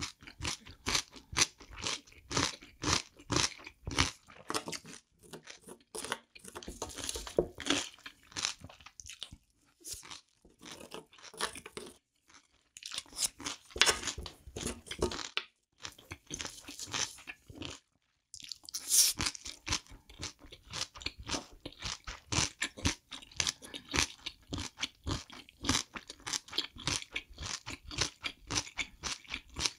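Close-miked wet chewing and crunching of spicy seafood fried rice, a steady run of small mouth clicks and smacks. Around the middle, a wooden spoon scrapes across the stainless-steel pan.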